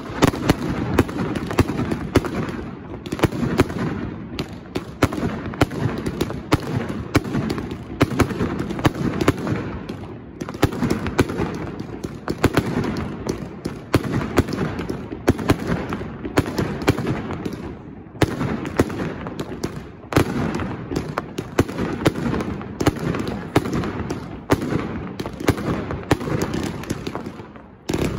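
Valencian castillo fireworks display: aerial shells and comets going off in a dense, rapid barrage of sharp bangs, with brief lulls every few seconds.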